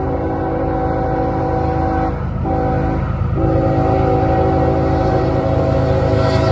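CSX freight locomotive's multi-chime air horn sounding for a grade crossing: a long blast that ends about two seconds in, a short blast, then a long blast held almost to the end. Beneath it, the low rumble of the approaching train grows louder.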